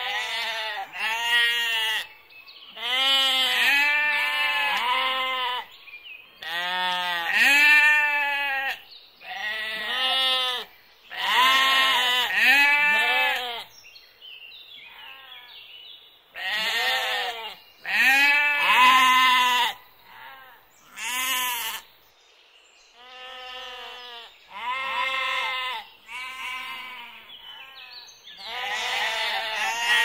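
Sheep bleating over and over: wavering calls a second or less long, coming in runs of two to four with short pauses between.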